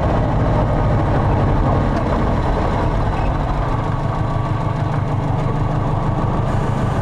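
Subaru EJ205 turbocharged flat-four engine running steadily at a constant low speed, heard from the engine bay at the air intake.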